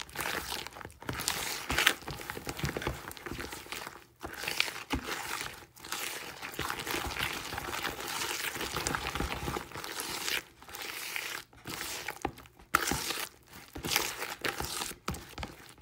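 A bare hand kneading and smearing a soft, creamy mixture of margarine, sugar and egg in a bowl: irregular squishing strokes with short pauses between them.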